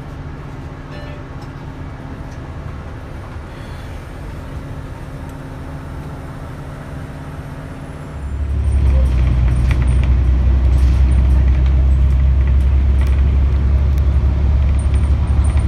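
Bus interior noise: a steady low rumble from a city transit bus's engine and running gear, which jumps much louder about eight seconds in.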